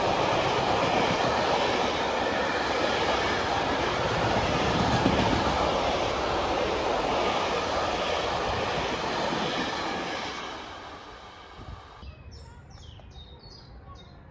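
Freight train running past on the rails, its wagon noise fading away from about ten seconds in. A few bird chirps near the end.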